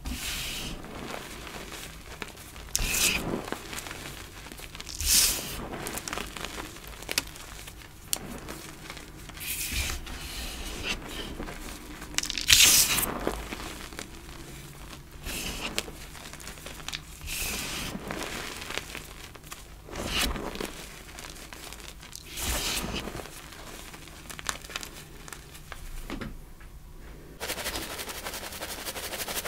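Hands crushing and crumbling dyed gym chalk blocks, with irregular crunches and soft crumbling of powder, the loudest crunch about halfway through. In the last couple of seconds a mesh sieve is shaken, with a fast steady patter of chalk through the mesh.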